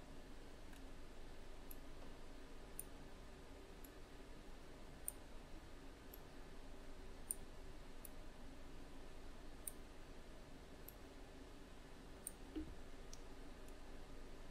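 Faint, irregular computer mouse clicks, about a dozen scattered through, over a low steady room hum.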